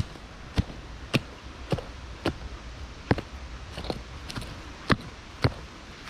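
A series of about ten sharp knocks in a steady rhythm, roughly two a second, over low wind noise.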